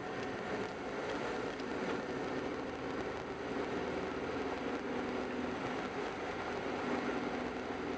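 Car engine and tyre noise while driving at a steady speed: a continuous droning hum with road noise, its pitch shifting slightly about five to seven seconds in.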